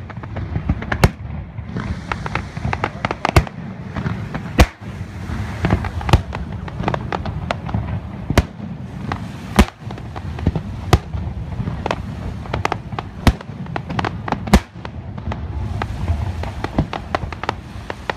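Aerial fireworks display: shells bursting overhead in sharp bangs at an irregular pace, about one or two a second, over a steady low background rumble.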